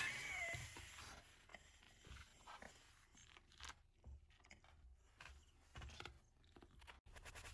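Near silence: a sound fades out within the first second, then only faint, scattered clicks and taps.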